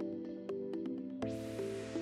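Background electronic music with a steady beat and sustained synth chords; a bright wash of noise swells in just after a second and fades away.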